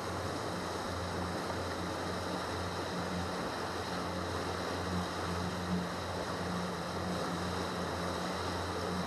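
Yamaha 70 hp outboard motor running steadily under way, a low even drone over the rushing hiss of the boat's wake and water along the hull.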